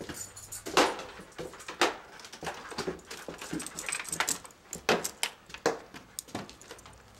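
Footsteps climbing bare wooden stairs: irregular sharp knocks and scuffs about every half to one second, the loudest two near the start.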